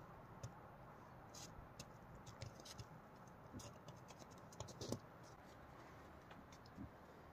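Near silence: a low steady hiss with faint scattered scratches and clicks of small handling, the loudest click about five seconds in.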